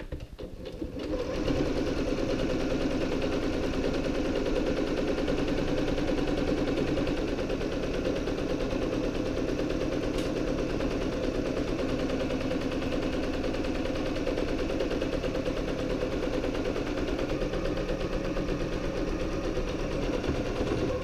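Domestic electric sewing machine running steadily at stitching speed, sewing a seam around two layered fabric panels; the motor starts about a second in.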